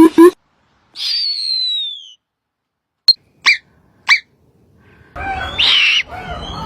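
A string of separate animal calls, most likely birds: a single whistled note falling in pitch, then three short sharp chirps, then a longer harsh, rasping call near the end, with silent gaps between them.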